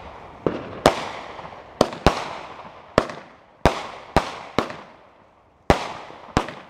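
Aerial firework shells bursting in the sky: about ten sharp bangs at uneven intervals, each trailing off in a fading echo.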